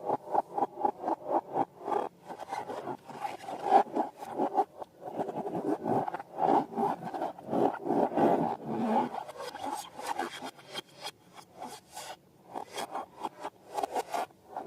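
Balloons and slime being handled, giving rubbery scraping and squeaking strokes in quick succession. They come about four a second at first, run together in the middle and pause briefly near the end.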